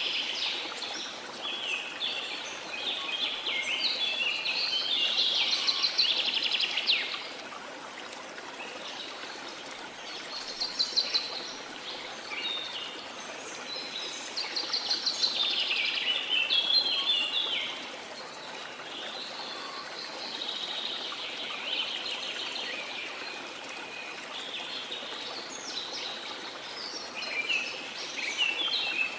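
Birds singing bouts of rapid trills and chirping phrases every few seconds over the steady rush of a waterfall.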